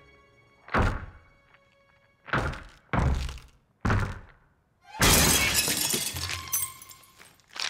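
Four heavy knocks on a glass pane, each cracking it further, then the glass shatters with a long crash about five seconds in.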